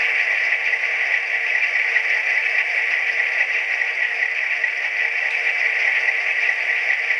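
HO-scale model diesel locomotive (Proto 2000 EMD SD9) with a Tsunami sound decoder playing its EMD 567 prime-mover sound steadily through a small onboard speaker. The sound is thin and hissy, with little bass and no pauses.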